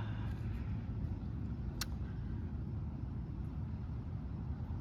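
A steady low rumble, with one sharp click about two seconds in.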